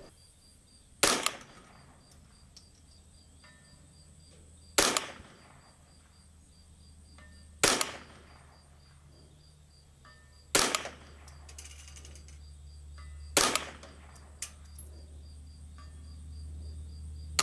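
Five .22 LR rifle shots from a semi-automatic Kidd 10/22, fired one at a time about three seconds apart.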